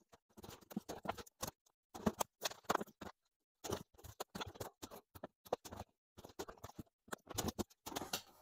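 Plastic N scale roadbed track sections, Kato Unitrack type, clicking and rattling as they are unsnapped at their unit joiners and pulled up by hand: irregular clusters of small clicks with short pauses between them.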